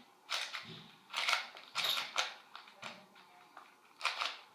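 ShengShou mini 7x7 puzzle cube being handled, its plastic pieces clicking and scraping in a series of short, irregular bursts.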